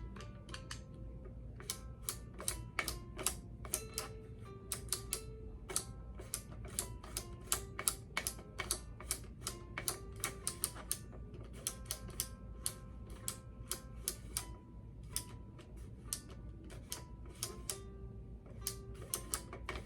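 VTech Spin and Learn Color Flashlight toy in its piano mode, playing short electronic notes in quick, uneven succession as its buttons are pressed, each note starting with a sharp click. The notes step up and down in pitch.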